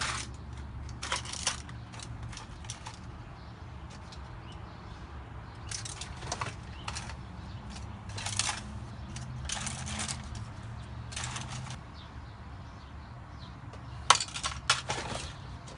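Small scattered clicks and clinks of CR2025 coin-cell batteries and a Mercedes smart key fob being handled, with a sharp pair of clicks near the end. A low steady hum runs underneath.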